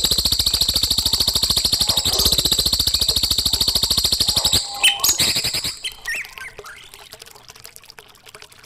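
A songbird's very fast, buzzy trill held for about four and a half seconds, followed by a few short chirps and then a quieter stretch near the end, as on a bird-song tutoring track for young magpie robins.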